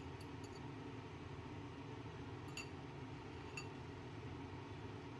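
Beaten egg cooking in an oiled frying pan over a gas burner: a faint, steady low burner noise with a few small pops from the pan, three close together at the start and two more around the middle.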